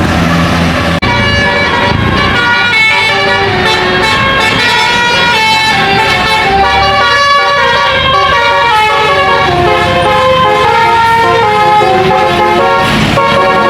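Bus telolet horn, a multi-tone air horn, playing a long melodic run of quickly changing notes. A bus engine's low rumble is heard in the first second before the horn starts.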